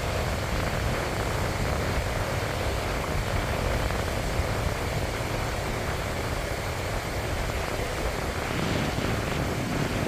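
Wind buffeting the microphone in a steady low rumble, over the continuous wash of surf breaking on a sandy beach.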